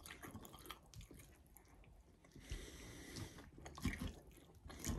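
Faint close-up chewing of a mouthful of salad, with a few light clicks of a fork against the bowl.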